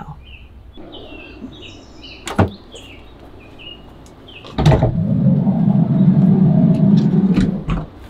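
The sliding side door of a Ram ProMaster-based camper van is rolled shut: a sharp start about four and a half seconds in, then a loud rumbling run of about three seconds that stops just before the end. A sharp click comes about two seconds in, and birds chirp faintly in the first half.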